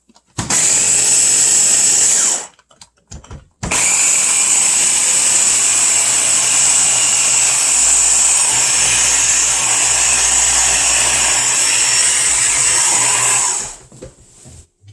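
Electric kitchen blender running in bursts while grinding cooking ingredients: a short run of about two seconds, a brief pause, then a long steady run of about ten seconds that stops near the end.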